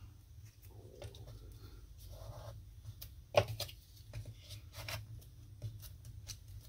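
Fingers pressing and rubbing a freshly glued paper panel flat on cardstock: soft paper rustling and rubbing with a few light taps and ticks, the sharpest about three and a half seconds in, over a faint steady low hum.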